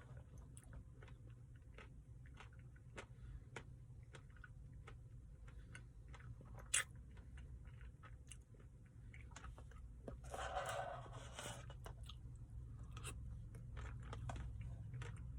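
Faint close-up chewing of a spoonful of ice-cream Blizzard with brownie pieces: small wet mouth clicks over a steady low hum, one sharp click about seven seconds in, and a brief louder smacking stretch about ten seconds in.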